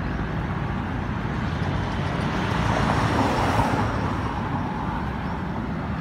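Road traffic noise, with a vehicle passing that is loudest about halfway through.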